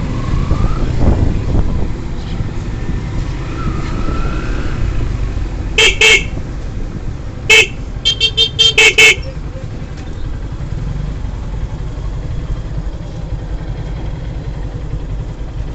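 Vehicle horns honking over a steady rumble of engine and road traffic: two short beeps, then a single beep and a quick string of about six short beeps near the middle.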